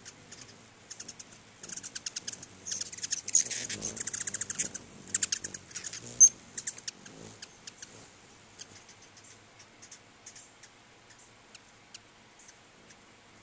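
Ruby-throated hummingbirds chittering: rapid, high, dry chip notes that are dense for a few seconds, then thin out to scattered ticks. In the middle comes the low, wavering hum of wings as a bird hovers close by.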